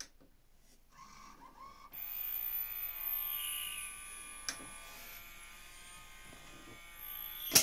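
Pioneer CLD-2950 LaserDisc player starting up with a buzzing, high-pitched whine from about two seconds in, a click midway and a sharper click near the end. It is the scream the faulty player makes instead of playing.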